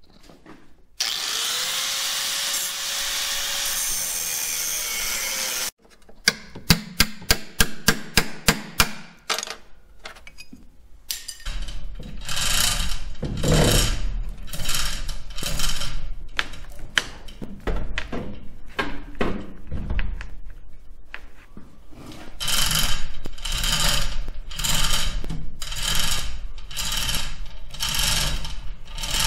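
A power cutting tool runs steadily for about five seconds, cutting away sheet metal where the cab meets the firewall. It stops, then comes a quick run of sharp clicks, then rhythmic back-and-forth strokes on metal, about one a second.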